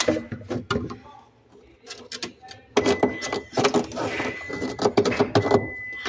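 Plastic clattering and clicking as a refrigerator's evaporator fan cover panel is handled and shifted, in irregular bursts that are densest in the second half. A thin steady high tone sounds faintly behind it.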